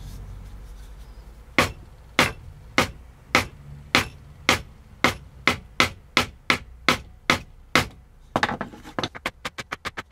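A mallet striking a metal hole punch through a vinyl skin sheet: a dozen or more sharp knocks about two a second, then a quicker run of lighter taps near the end.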